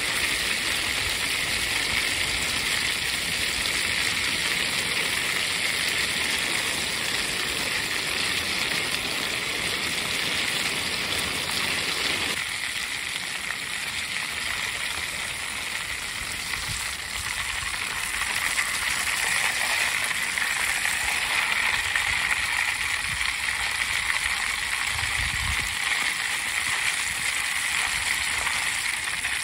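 Crimson glory vine (yamabudo) berries frying in hot oil: a steady bubbling sizzle, its lower part dropping away about twelve seconds in.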